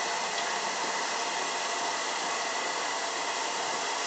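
Hot water tap running full into the sink with a steady hiss, left on so the water runs hotter.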